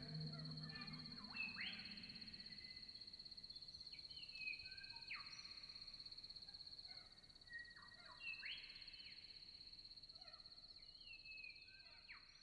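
Faint outback dusk ambience: a steady, rapidly pulsing high insect trill, with bird calls every few seconds that fall in pitch.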